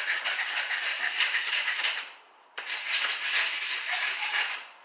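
Steel knife blade rasping against 120-grit sandpaper on a wooden 2x4, rubbed in short quick circles to sharpen its edge. The scraping pauses for about half a second a little after two seconds in, then resumes.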